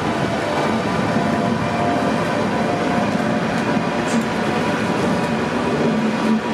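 Class 86 electric locomotive passing close by: a steady hum from its motors, with a few held tones, over the rumble of wheels rolling on the rails.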